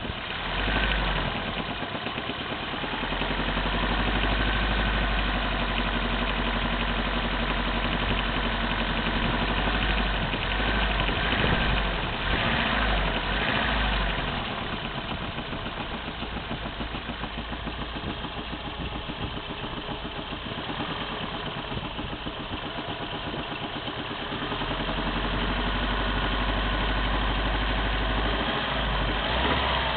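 Opel C20NE 2.0-litre eight-valve four-cylinder petrol engine running hot, with the knock that shows up once it is warm. Its level rises a few seconds in and again near the end.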